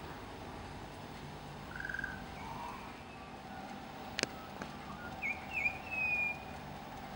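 Bird chirping: a soft note about two seconds in, then two short chirps followed by a longer whistle near the end. A single sharp click just before the chirps.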